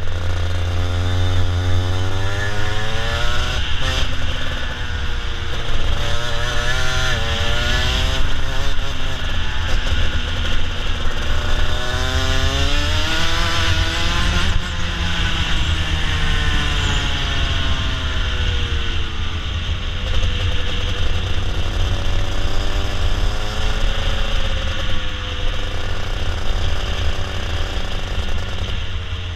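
Racing go-kart engine at full race pace, heard from on board: its pitch climbs as the revs rise along the straights and drops off into the corners, several times over. A steady low rumble of wind and vibration runs underneath.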